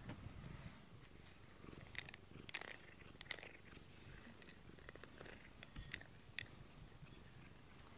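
A cat purring quietly while a rubber grooming brush is drawn through its fur, with a few short rustling brush strokes about two to three and a half seconds in and again around six seconds.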